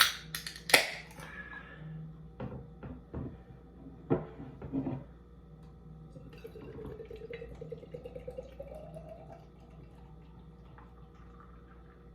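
A can of American lager cracked open with two sharp snaps and a short hiss, a few knocks, then the beer poured into a glass, its gurgle rising in pitch as the glass fills.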